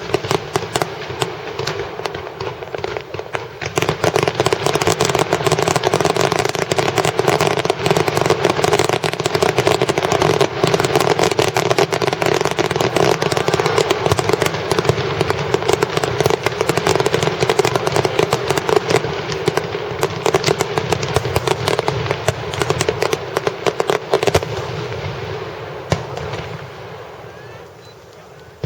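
Fireworks set piece going off: a dense, continuous crackling of many rapid small reports. It thickens about four seconds in and dies away over the last few seconds.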